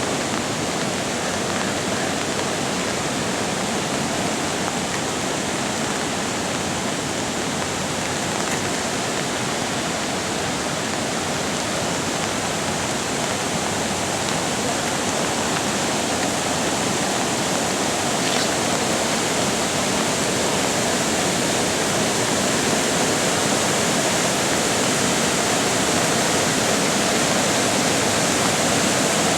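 Floodwater of a swollen creek rushing steadily, a dense, loud churning noise that grows slightly louder toward the end.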